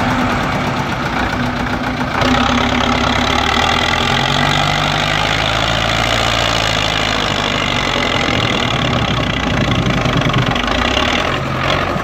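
Tractor engine running steadily, its note shifting a little in pitch and strength, with a short sharp sound near the end.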